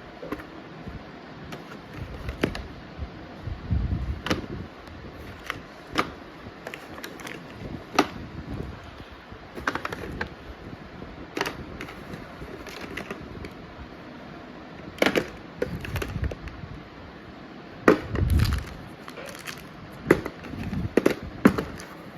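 Hands handling a parking sensor kit and its packaging: irregular clicks and taps of plastic parts, with a few dull low thumps, coming thicker near the end.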